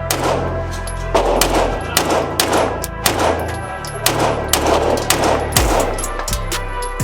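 Handgun fired in quick strings of shots, each with a short ringing tail, over background music.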